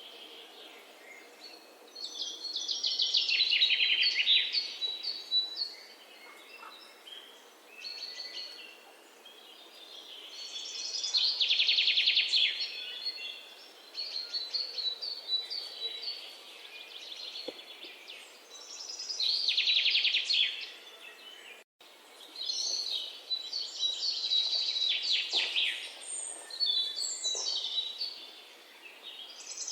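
Birdsong: a bird repeating a loud, rapid trilling song phrase about every eight seconds, with thin chirps in between. The sound cuts out for an instant a little past the middle.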